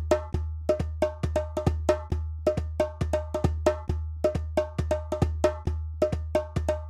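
Background music with a quick, steady beat of bright knocking hits, like a woodblock or cowbell, over a pulsing bass note.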